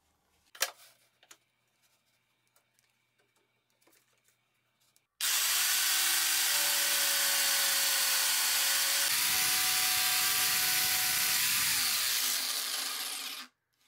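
Jigsaw with its blade tilted to 45 degrees cutting a slot into plywood. It starts about five seconds in and runs steadily with a motor whine that shifts pitch partway through, then winds down and stops shortly before the end.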